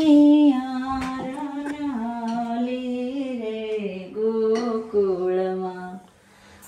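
A voice singing a slow tune in long held notes that step up and down in pitch, with a few light clicks. The singing breaks off briefly near the end.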